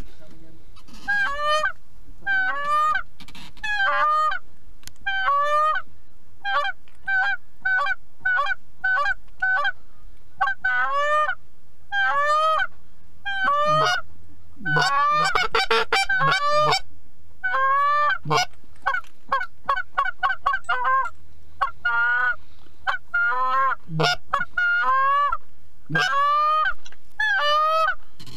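Canada goose honks and clucks, repeated in quick runs with a dense flurry of overlapping clucks about halfway through.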